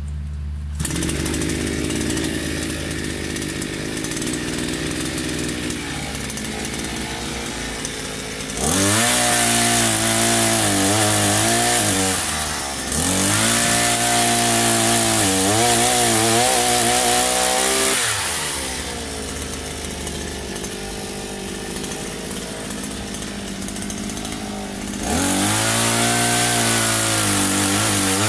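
Petrol-engine pole chainsaw running at a low speed, then revved up three times for several seconds each. During each high-revving spell the engine pitch dips and wavers as the chain cuts into overhead branches.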